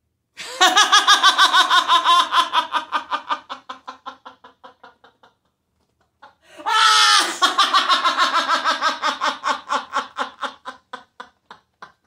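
A person laughing hard in two long fits of rapid, even ha-ha pulses, each starting loud and trailing off; the second fit opens with a high shriek.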